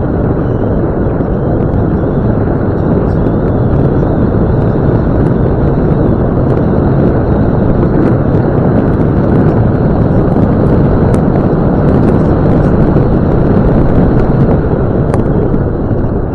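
Land Rover Discovery 2 driving along a gravel road, heard as a loud, steady rumble of wind and road noise on a camera microphone mounted outside the vehicle, with a few faint ticks from gravel.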